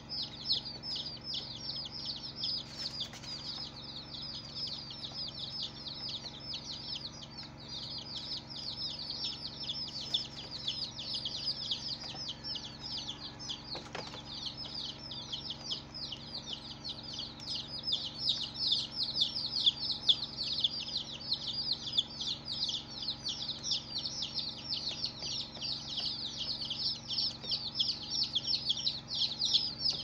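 A flock of six-day-old chicks peeping without pause: many quick, high chirps overlapping, each dropping in pitch, growing louder in the second half.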